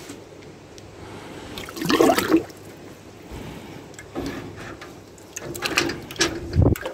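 A crucible pushed down by hand into a metal bucket of calcium carbonate slurry: the liquid sloshes and gurgles, loudest about two seconds in and again near the end, with a dull thump just before the end.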